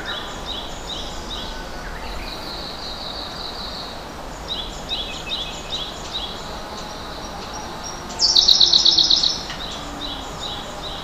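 Songbirds singing: repeated short chirped phrases, a longer trill a little after two seconds, and a louder, rapid trill about eight seconds in, over a steady background hiss.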